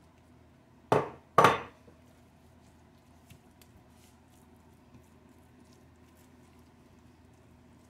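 Two sharp clanks about half a second apart as a glass container of ground chicharrón is knocked against a non-stick frying pan to empty it, followed by faint soft scraping of a silicone spatula spreading the paste in the pan.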